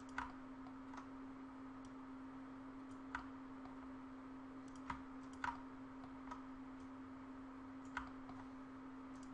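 Computer mouse clicking at irregular intervals: about five distinct clicks and a few fainter ones, over a steady low hum.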